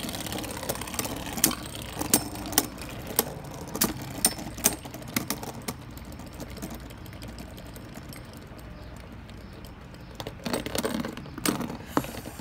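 Mirage Fafnir and Brave Valkyrie Beyblade tops battling in a plastic stadium: rapid, irregular clacks as the tops collide with each other and the stadium. The clacks thin out about halfway through over a faint spinning hiss, then a burst of clicks comes again near the end.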